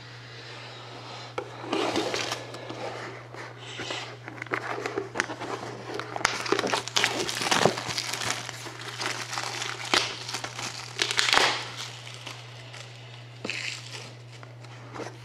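Plastic shrink-wrap on a sealed trading-card box being crinkled and torn off, in irregular crackling bursts with sharp clicks, busiest in the middle and tapering off near the end.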